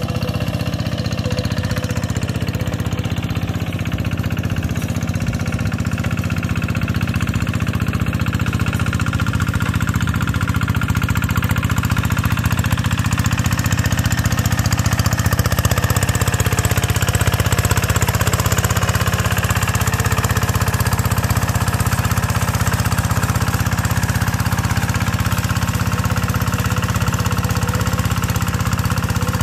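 Single-cylinder diesel engine of a two-wheel hand tractor running steadily under load as it plows wet paddy mud on iron cage wheels. It grows louder from about halfway through as the tractor comes closer.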